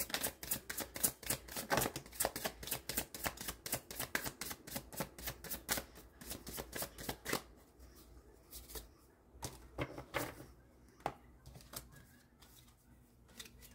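A deck of oracle cards being shuffled by hand: a dense run of quick card clicks and flicks that thins out about seven seconds in to a few scattered taps.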